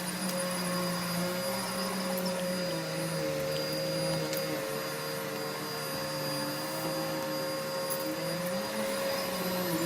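Vacuum cleaner running steadily, its motor tone wavering up and down a little as it works the floor.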